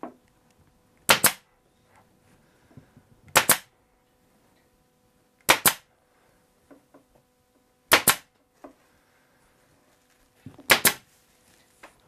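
Pneumatic upholstery stapler firing five times, two to three seconds apart, each shot a sharp double crack as it drives a staple through muslin into the wooden seat rail.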